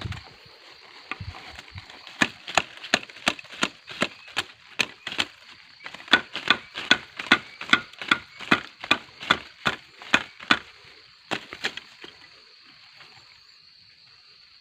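Rapid, evenly spaced chopping strokes into a gombong bamboo stem, about two or three a second for some eight seconds, then a short pause and two last blows.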